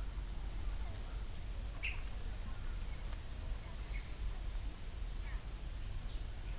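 Scattered short bird chirps a second or two apart, over a steady low rumble.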